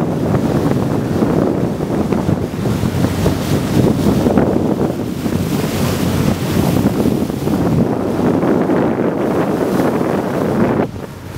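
Wind buffeting the microphone on the deck of a moving boat, over the rush of water along the hull. The noise is loud and steady and drops off sharply near the end.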